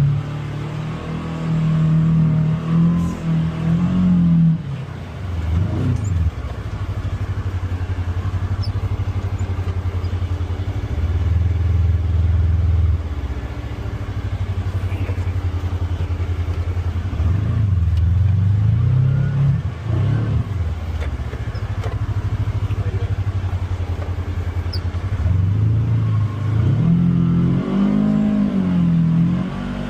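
Polaris Xpedition UTV engine running on a rough trail, its revs rising and falling again and again, with steady stretches in between.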